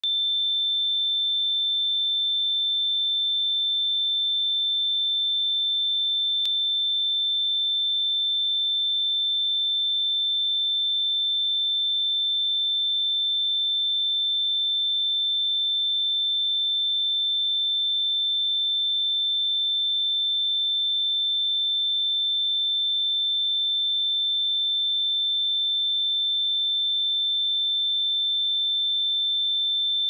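A pure 3551 Hz sine-wave test tone: a single steady high tone held at a constant level.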